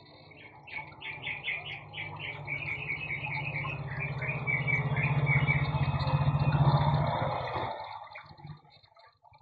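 A bird chirping in a quick, even series of short high chirps, about three a second, fading out near the end. Under it a low steady drone builds up and then cuts off suddenly about two seconds before the end.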